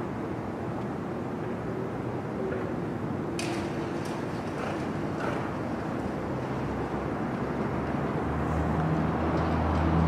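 Street traffic: a steady rumble of vehicle engines, with a low engine drone building and getting a little louder in the last few seconds.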